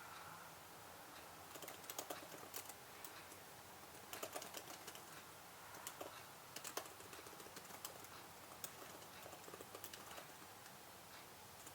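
Faint typing on a computer keyboard: clusters of quick key clicks, separated by short pauses.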